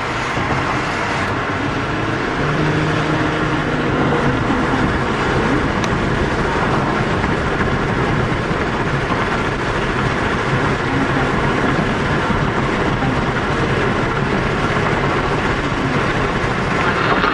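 Steady road and wind noise inside a moving car's cabin.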